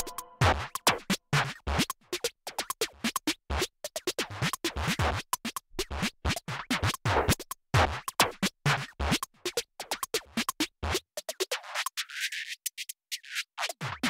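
Background electronic music in a sparse break: a fast, irregular run of scratch-like clicks and hits with no bass or melody. About eleven seconds in, the low end is cut away for a couple of seconds, leaving only thin high clicks.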